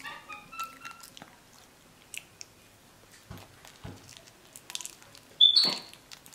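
Capuchin monkey biting and chewing a soft, mushy banana: quiet wet smacks and small clicks of mouth and fruit. A faint high rising tone is heard in the first second, and a short, sharp, louder sound comes about five and a half seconds in.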